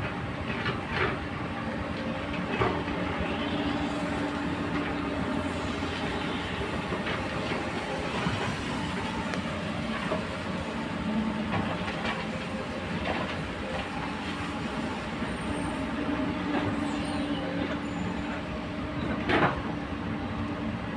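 Komatsu PC200 hydraulic excavator's diesel engine running steadily under digging load, with short metallic clanks and knocks from the working bucket and boom scattered through, the loudest near the end.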